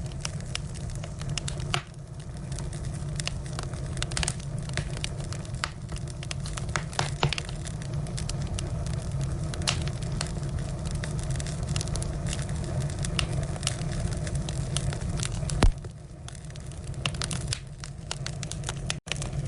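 Firewood burning, crackling with irregular sharp snaps and pops over a steady low rumble of the fire; one louder pop late on.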